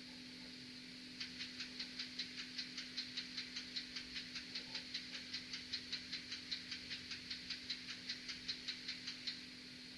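N-scale model locomotive's sound decoder playing its tachograph (speed recorder) sound through the model's tiny speaker: rapid, even mechanical ticking, about five ticks a second. It starts about a second in and stops near the end.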